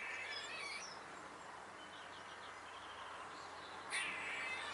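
A squirrel's chattering alarm calls: a burst of rasping chatter at the start, a faint run of quick clicks in the middle, and another chatter burst near the end.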